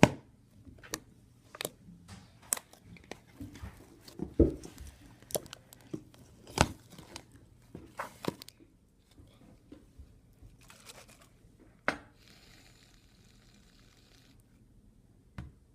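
Slime being handled: irregular sharp pops and crackles, a couple a second for the first nine seconds or so, then sparser, with a short crackly hiss a little past the middle.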